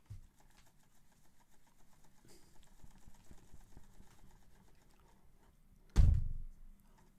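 Faint rubbing and small ticks of fingers pressing a wet stripe decal and its backing paper onto a painted motorcycle fuel tank, with a single dull thump about six seconds in.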